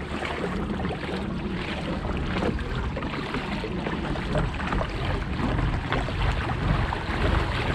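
Wind buffeting the microphone over water washing and splashing along a pedal kayak's hull while it is pedaled, a steady noise with faint scattered ticks.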